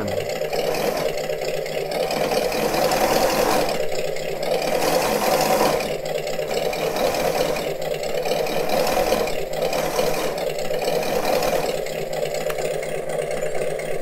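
Simulated engine sound from an Arduino engine-sound generator played through small amplified speakers, swelling and easing in revs and volume as the throttle is worked. The electric gear motors driving the 3D-printed tracks run along with it, the tracks going too fast.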